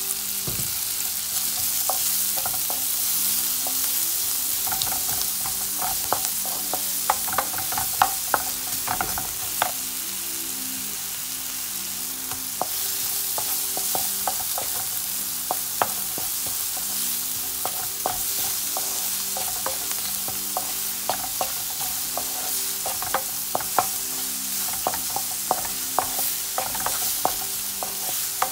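Sliced onions sizzling in oil in a pan, stirred with a wooden spatula that knocks and scrapes against the pan in quick clusters of taps over a steady hiss.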